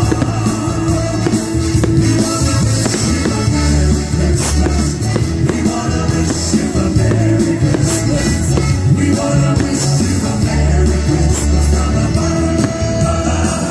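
Live band music with singing, amplified through a stage sound system, with a steady bass line and drums.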